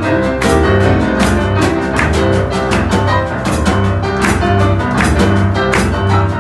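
Boogie-woogie played live on several pianos at once, an upright acoustic piano and digital keyboards, with a snare drum keeping a steady beat. A deeper rolling bass line comes in right at the start.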